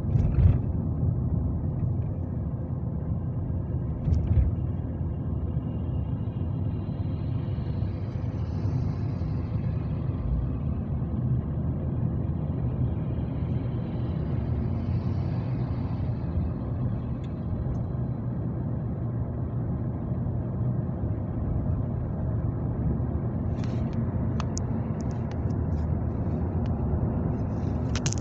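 Steady low rumble of road and engine noise from a moving vehicle, with a brief knock near the start and another about four seconds in.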